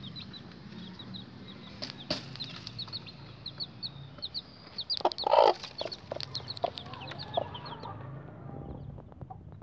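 Bangkok gamefowl chicks peeping rapidly and continuously, short high chirps one after another, while their mother hen clucks; about five seconds in comes one louder, lower hen call. The peeping fades out near the end.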